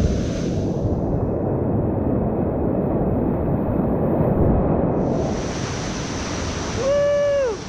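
Whitewater rapids rushing loudly around a kayak at close range, with water and wind noise on the microphone. Near the end comes a short shout that rises and then falls in pitch.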